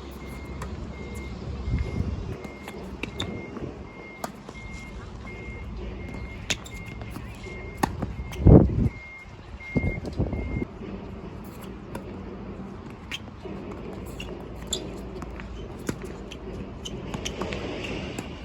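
Wind buffeting the microphone with a low rumble, peaking in a heavy gust about halfway through, over a tennis rally with sharp, scattered racket-on-ball strikes. A steady high electronic beep repeats about twice a second and stops after roughly ten seconds.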